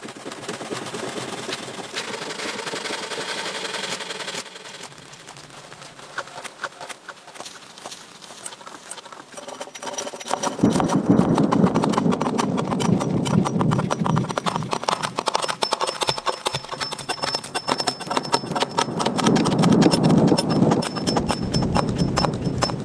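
Hatchet chopping into a log: repeated hollow wooden knocks, much louder from about ten seconds in, over a rustling background.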